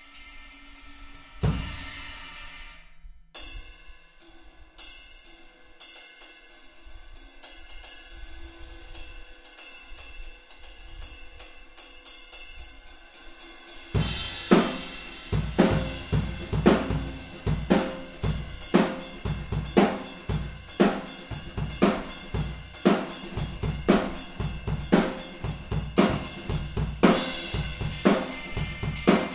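Owl Dark cymbals on a drum kit. The 24-inch ride is struck hard about 1.5 s in and choked near 3 s, then played with steady light strokes that leave its ringing wash sustained. About halfway through, a full drum-kit groove starts, much louder: bass drum, snare and cymbals in a regular beat.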